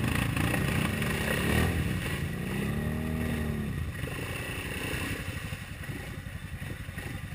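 ATV engines running in deep mud: one revs up and back down about three seconds in, then the engine sound drops to a lower, quieter fast putter.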